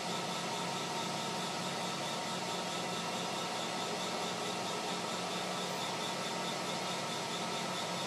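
Metal lathe running at a steady speed while a twist drill bores the hole for an M4 screw thread into a spinning brass knob. It is a steady machine hum with several constant tones over a hiss.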